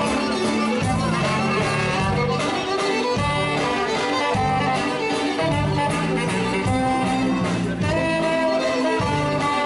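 Live band playing an instrumental passage with a steady bass line and beat, instruments carrying the tune.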